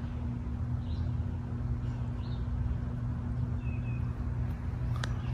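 A steady low hum from an unseen machine runs throughout, with a few faint, short bird chirps above it and a single sharp click near the end.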